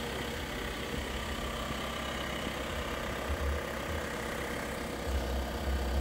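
Volkswagen T6.1 van's 2.0-litre diesel engine idling steadily, with wind buffeting the microphone now and then.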